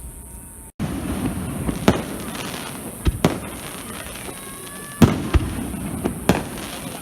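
Fireworks display: shells bursting with sharp bangs, about seven of them spread over several seconds, after the sound cuts out for a moment near the start.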